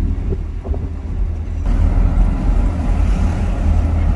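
Steady low rumble of a car driving along a road, engine and tyre noise together, with a rushing noise that gets louder about a second and a half in.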